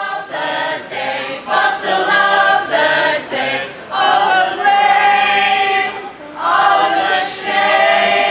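A group of voices singing a cappella in harmony, in sung phrases broken by short breaths.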